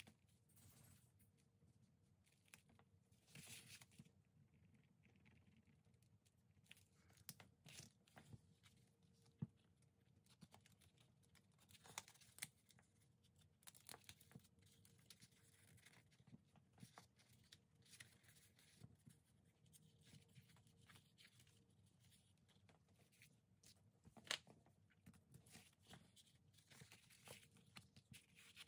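Faint paper handling: sheets and a small folded paper booklet rustling and being shifted on a table, with scattered light taps and clicks.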